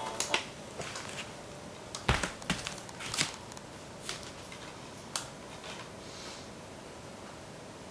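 Handling noise: scattered sharp clicks and light rustles, about half a dozen in the first five seconds, then only a low hiss.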